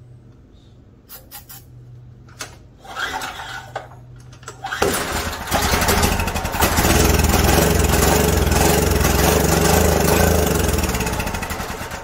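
A short hiss of starting-fluid spray, then the Generac LP5500 generator's engine catches about five seconds in and runs steadily before dying away near the end. It is running on starting fluid alone because its propane demand regulator no longer regulates the flow of propane.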